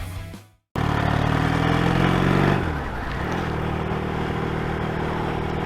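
The end of a music track fades out, and after a short gap a motorcycle engine is heard running. Its note climbs a little, falls away about three seconds in, then holds steady.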